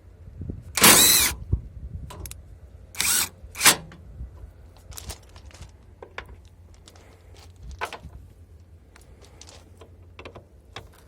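AutoJare B1803 brushless half-inch-drive cordless impact wrench run in short bursts: the loudest, about half a second long, comes about a second in, and two shorter ones follow around three seconds in. Scattered lighter metallic clicks and clinks come after them.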